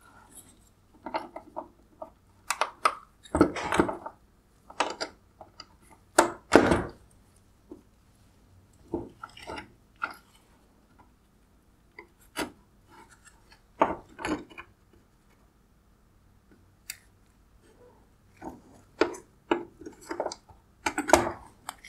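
Irregular plastic clicks, snaps and rubbing as gloved hands pop plastic rivets out of the wire harness bracket on a 2016 Mercedes-Benz GLE LED headlight, with a few heavier knocks among them.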